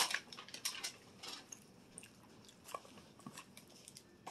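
A person chewing a mouthful of cold fries close to the microphone: a run of short, crisp clicks in the first second and a half, then scattered soft mouth clicks.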